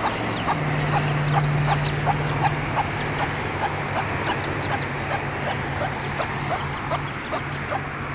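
Ducklings peeping repeatedly in short high calls, two or three a second, over a steady low hum.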